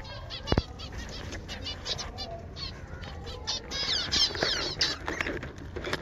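A colony of zebra finches calling together: many short, high, nasal chirps overlapping without pause. There is one sharp knock about half a second in.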